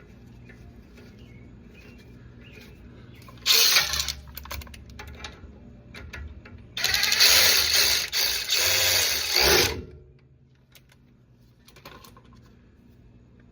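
Handheld power tool motor running in two bursts, a short one about three and a half seconds in and a longer one of about three seconds near the middle that winds down as it stops, driving in a brake caliper bolt.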